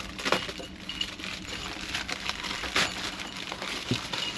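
A package of new camper locks being opened by hand: rustling and handling noise with many small clicks and metallic clinks from the lock hardware and keys inside.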